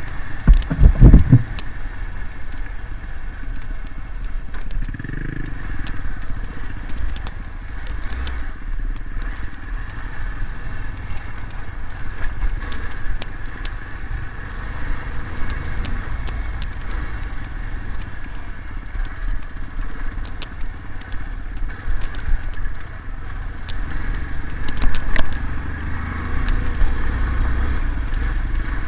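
Motorcycle engine running steadily while riding a bumpy dirt trail, with a constant low rumble of wind and tyre noise, scattered clicks and knocks from the track and a heavy thump about a second in.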